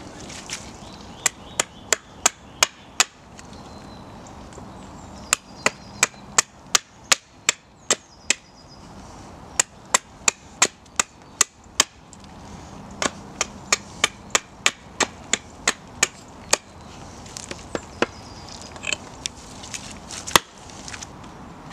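Hatchet splitting kindling on a wooden chopping block: sharp chops in quick runs of several strikes, about three a second, with short pauses between the runs.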